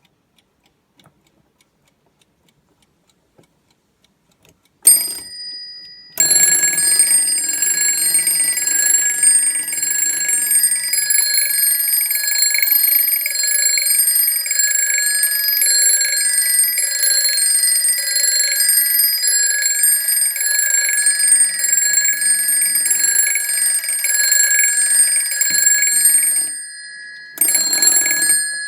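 Antique Junghans double-bell mechanical alarm clock: after a few faint clicks, the bells are struck once about five seconds in. Then the alarm rings continuously for about twenty seconds, the hammer rapidly striking the two bells. It stops, then gives one short last burst near the end that rings out.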